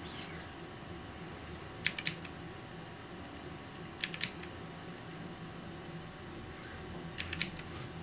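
Computer keyboard keystrokes: three quick clusters of two or three key clicks, about two seconds apart, over a steady low room hum.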